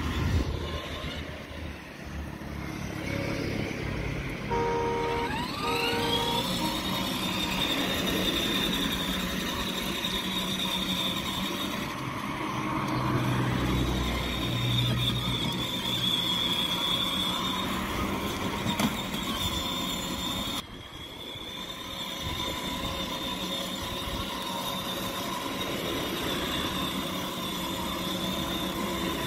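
Child's battery-powered ride-on Nissan GT-R toy car driving, its electric motor and gearbox giving a steady high whine over the rolling of its wheels on asphalt. The whine rises in pitch about five seconds in, just after two short tones.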